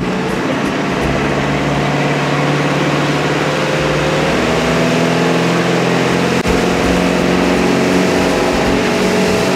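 A boat's newly rebuilt long-block engine running steadily under way, with the rush of water and wind over it. The engine note climbs a little about halfway through, and the engine runs without knocking.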